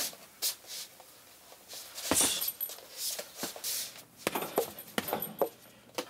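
Gloved punches landing on a heavy punching bag: a string of sharp slaps and thuds, irregular and coming in quick bursts of a few at a time.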